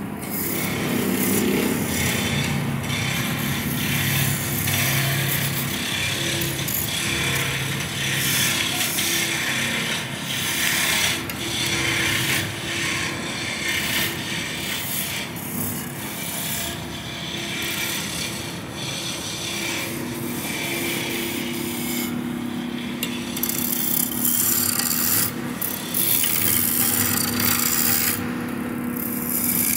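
Wood lathe running with a steady hum while a turning tool scrapes against the spinning wood in uneven passes.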